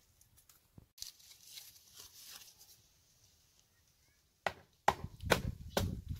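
Paper rustling as it is pushed into a clay stove's firebox, then a hatchet chopping kindling on the ground: four or five sharp strikes about half a second apart, starting near the end.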